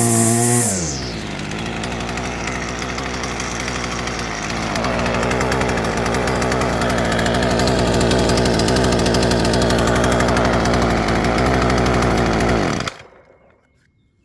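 Husqvarna 124C string trimmer's two-stroke engine dropping from high revs to a steady idle in the first second, idling evenly, then winding down and stopping about a second before the end.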